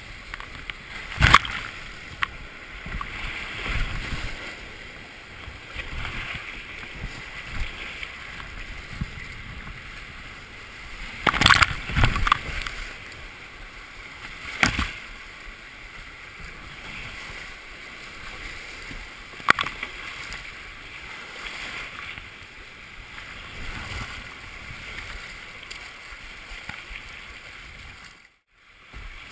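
Whitewater rushing past a kayak, heard from a camera mounted on the kayak's deck, with water splashing over it. Several sharp splashes break through at intervals, loudest a little before the middle. The sound cuts out briefly near the end.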